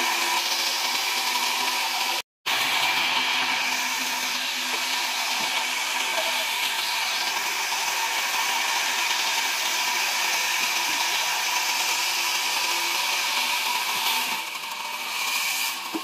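Large sawmill band saw running and cutting through a log: a steady, loud hiss over a motor hum. It cuts out completely for a moment about two seconds in, and it eases slightly near the end.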